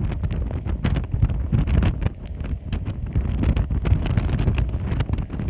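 Wind buffeting the microphone in irregular gusts over the steady rush of a flooded, high-water river.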